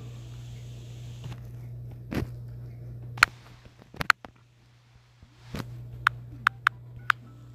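Fingertips tapping on a phone's touchscreen: single sharp clicks every second or so, then four in quicker succession near the end, over a steady low hum.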